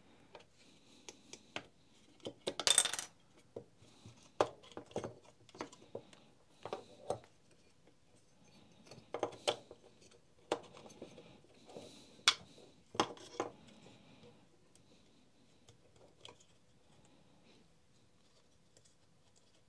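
Plastic housing parts and the motor and switch assembly of a Makita DTD156 impact driver clicking and knocking against each other and a steel worktop as they are handled and lifted out. Irregular clicks and knocks, the loudest about three seconds in, thinning to faint handling noise after about fourteen seconds.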